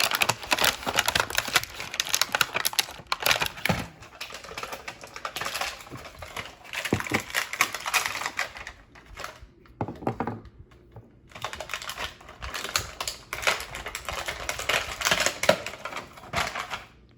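Rapid, irregular clicking and rattling of small hard-plastic toy parts being handled and snapped together, with a quieter pause about halfway through.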